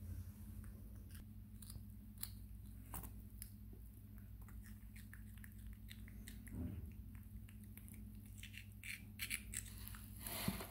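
A baby macaque biting and chewing raw cucumber, making faint, scattered wet crunches and mouth clicks, with a louder cluster of crunches near the end. A low, steady hum runs underneath.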